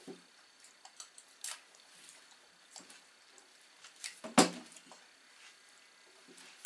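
Small scattered clicks and knocks from a toddler picking salad pieces out of a plastic bowl by hand, with one sharp, louder knock about four seconds in.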